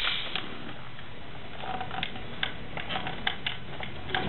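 Scattered plastic clicks and ticks from hands working a stiff pinch-type wiring harness connector loose behind an instrument cluster, about half a dozen at irregular intervals over steady background noise.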